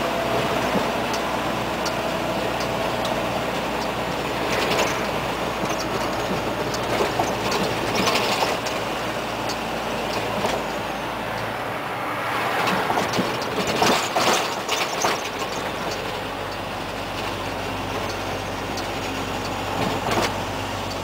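Inside the cab of a moving Scania 124L 420 truck: its straight-six diesel running steadily under road and wind noise, with scattered rattles and knocks from the cab. About twelve seconds in the deepest engine note drops away for around three seconds, then returns.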